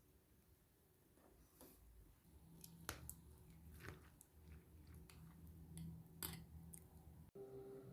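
Near silence with a faint low hum and scattered faint clicks and small handling noises; soft music comes in just before the end.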